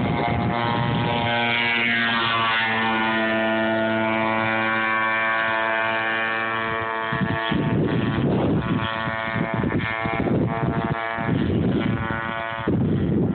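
Radio-controlled model boat's motor running at speed, a steady whine with many overtones. From about seven seconds in the sound turns uneven and choppy.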